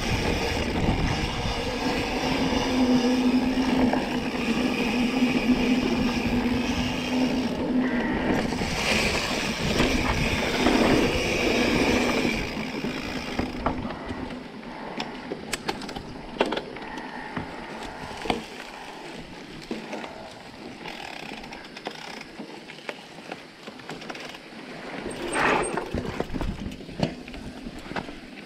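Electric mountain bike ridden along a dirt trail: wind rushes over the camera microphone and a steady motor hum runs for about the first twelve seconds. After that it is quieter, with tyre noise and sharp rattling clicks from the bike over rougher ground.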